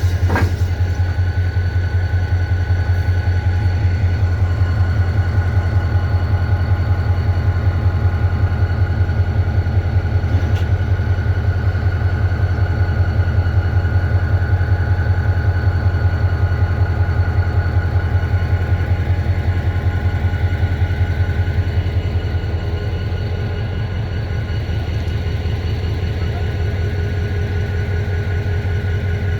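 EMD two-stroke diesel locomotive engine idling, a steady low throb with a fast even pulse that eases off slightly about three-quarters of the way through.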